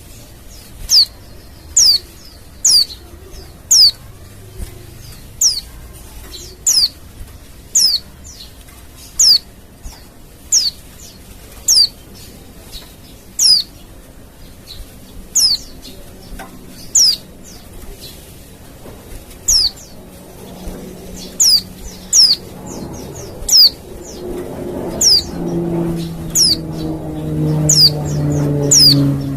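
Female white-eye (pleci) call: a thin, high note sliding downward, repeated about once a second, played as a lure to draw replies from wild white-eyes. In the last few seconds a low droning hum with a few steady tones grows underneath it.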